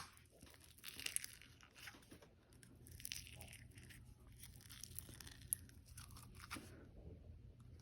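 Faint handling noise, mostly quiet: soft crinkling and crackling with an odd light click, as a tub of foam-bead slime is handled.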